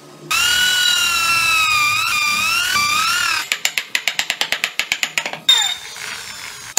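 An electric drill boring into a block of wood: the motor whines loudly, its pitch sagging and wavering under load. About halfway through this gives way to rapid even clicking, about ten a second, then a sharp click and a brief falling whine as the motor winds down.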